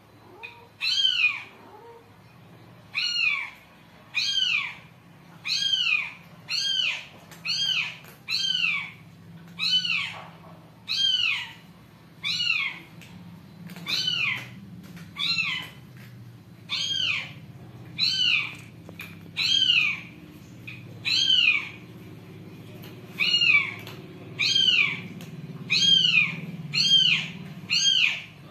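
A cat meowing over and over: short, high-pitched meows about once a second, each falling in pitch, with a few longer pauses between runs.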